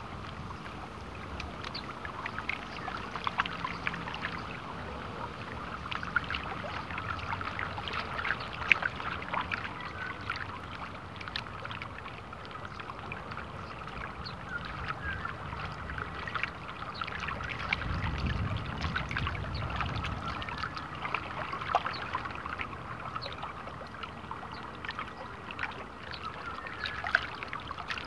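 Small wind-driven waves lapping and splashing at the water's edge in a steady patter of little ticks, with a low rumble of wind on the microphone about 18 seconds in.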